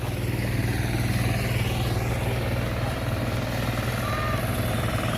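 Two-wheel hand tractor (kuliglig) engine running steadily with an even, unchanging note.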